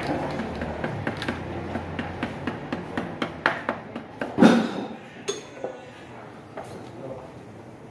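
Metal hand wrench working the bolts of an aluminium motocarro engine crankcase: quick metallic clicks at about four a second, then one louder clank about four and a half seconds in, followed by a few scattered clicks.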